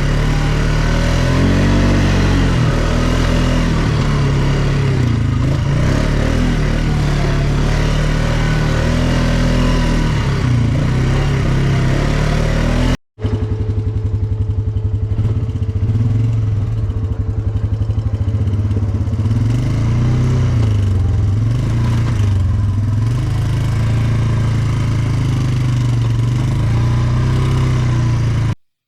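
ATV engine running under changing throttle, its pitch rising and falling. It drops out for a moment about halfway, then carries on at a lower, steadier pitch.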